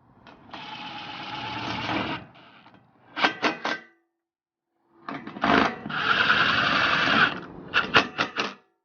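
Cordless power drill or driver running twice in short spurts, each spurt followed by a quick cluster of sharp clicks, while tightening the bolts on a roof rack.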